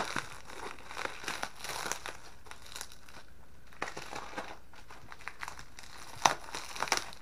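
Bubble wrap crinkling and crackling as hands pull it and cut it open, with irregular rustles and a few sharp snaps, the loudest two near the end.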